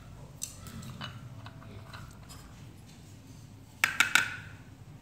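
Serving utensils clinking against bowls and a pot: a few light clicks, then three sharp clinks in quick succession near the end.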